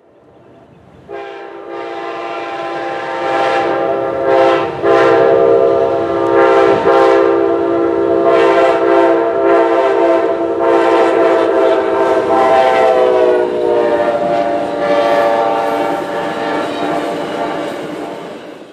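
Amtrak diesel locomotive horn sounding a loud multi-note chord for a grade crossing, starting about a second in and held almost throughout with a couple of brief breaks. The chord drops slightly in pitch about two-thirds of the way through as the locomotive passes, over the rumble of the train.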